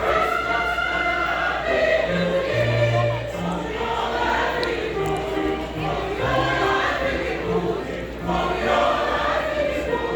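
Choir singing, with several voices moving between notes and short low notes sounding underneath.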